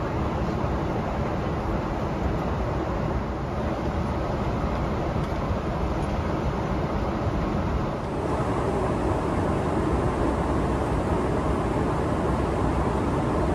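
Steady roar of a Boeing 777 airliner cabin in cruise: engine and airflow noise, even and unbroken, with a slight change in tone about eight seconds in.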